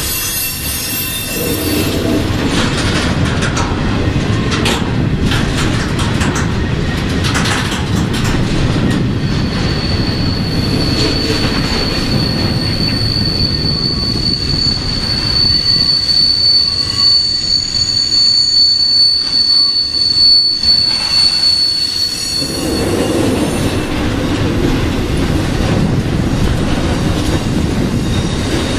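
Flatcars carrying truck trailers in a BNSF intermodal freight train rolling past, with a steady rumble of wheels on rail. Clicks and knocks come through in the first several seconds. A high, steady wheel squeal starts about ten seconds in and stops a little after twenty.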